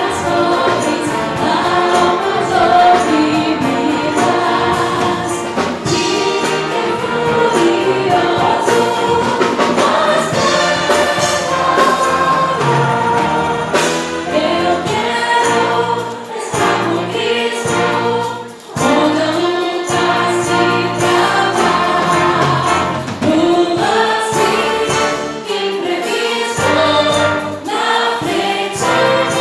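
A choir singing a gospel song with band accompaniment, many voices together over a steady beat.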